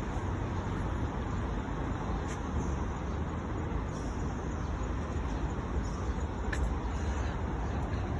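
Steady city street traffic noise: a continuous hum of vehicles passing, with no single event standing out.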